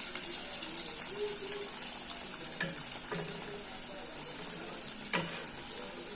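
Flour-coated chicken deep-frying in hot vegetable oil: a steady sizzling hiss with a few sharp clicks.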